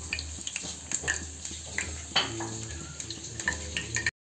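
Steel ladle stirring thick, simmering saag in a stainless steel pot, with scattered clinks and scrapes against the metal over a steady hiss. The sound cuts off suddenly near the end.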